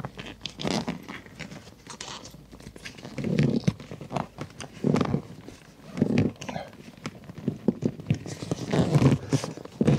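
Irregular knocks and thumps with sharp clicks as a Jaguar XK8's rear seat base and seat belts are handled and worked into place under the backrest.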